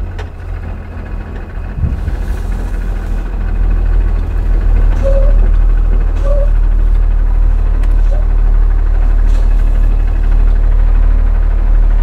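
Cummins ISB six-cylinder diesel engine of a school bus running, heard from inside the cab while the bus is being driven; a steady low rumble that gets louder about four seconds in.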